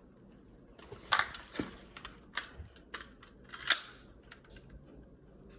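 Airsoft gun being handled: a handful of sharp plastic clicks and clatters, loudest about a second in and again near four seconds.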